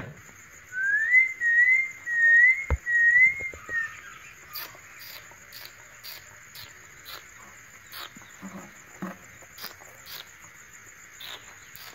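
A whistle of wavering notes, one short rising-and-falling phrase repeated four or five times over about three seconds. After that, a faint steady high hum with scattered soft clicks.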